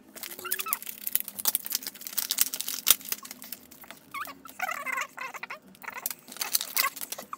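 Foil Pokémon booster-pack wrappers being handled, with dense, irregular crinkling and rustling.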